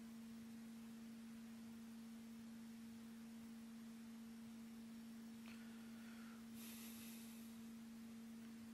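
Near silence with a steady low hum: one tone with a fainter one an octave above. A faint soft click and a short faint hiss come a little past halfway.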